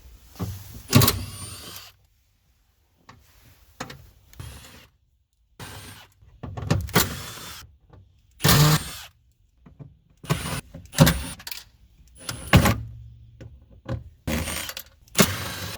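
A series of short knocks and clatters from hand tools working on car interior trim, about ten in all, with abrupt dead silences between them.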